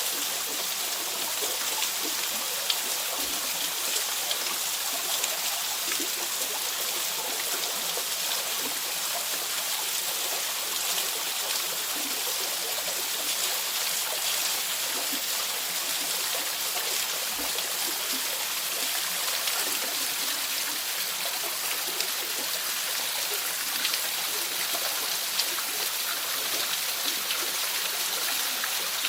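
Waterfall splashing steadily, an even hiss with small splashes and drips.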